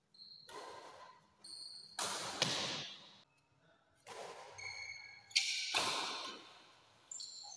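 Badminton doubles rally: rackets striking the shuttlecock with sharp hits about two and a half and five and a half seconds in, between bursts of scuffing footwork and short high squeaks of shoes on the tiled floor.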